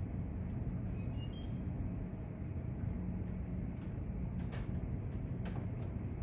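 Steady low engine rumble, with two sharp clicks about a second apart past the middle and a few faint high chirps about a second in.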